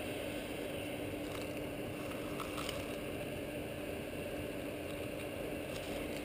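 Kawasaki KFX700 ATV's V-twin engine with a Muzzy Super Pro exhaust running steadily off in the distance, faint and at an even pitch.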